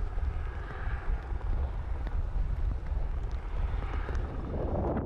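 Low steady rumble of an erupting volcanic vent fountaining lava, mixed with wind buffeting the microphone.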